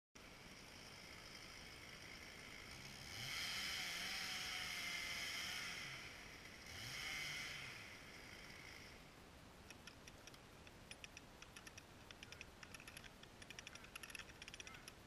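Faint chainsaw revving up to full throttle for about three seconds, dropping back, then revving briefly once more. After that comes a run of faint, irregular crackles and ticks.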